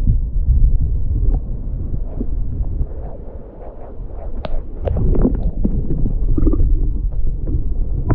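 Heavy low rumble of wind and handling on a body-worn microphone, with irregular crackles and snaps of twigs and leaves as someone pushes on foot through dense bush; the crackling gets busier about halfway through.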